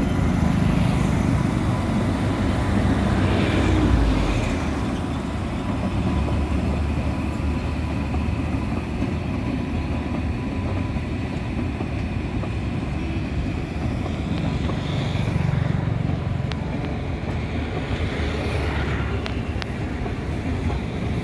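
Passenger train hauled by a WAP-7 electric locomotive pulling out and rolling past, a steady low rumble of wheels on the rails, with a few sharp clicks late on.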